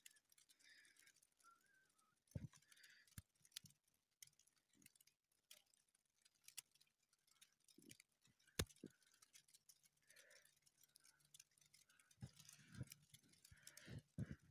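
Near silence, broken by scattered faint clicks and a few soft thumps, several of them close together near the end.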